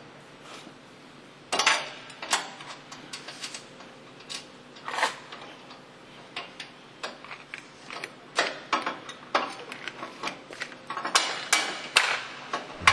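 Irregular sharp metallic clicks and knocks of hand tools and hardware being worked on an aircraft engine and its fittings. The louder clusters come about two seconds in and again near the end.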